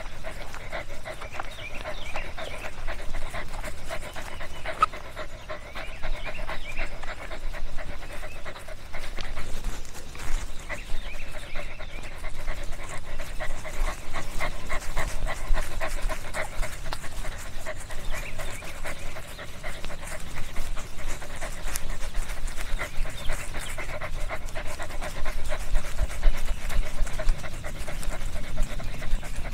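A dog panting rapidly and steadily close to the microphone, with a low rumble underneath.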